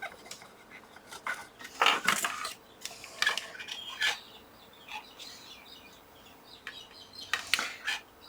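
A few light metallic clinks and short scrapes of small tools being handled on a workbench, spread out with quiet gaps between.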